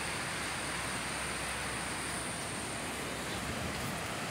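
Steady rushing of a swollen, rain-fed river running fast over rocks and rapids.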